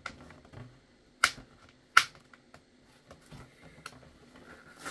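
Plastic blister pack being peeled open from its cardboard backing: light crinkling and clicking, with two sharp plastic snaps about a second and two seconds in.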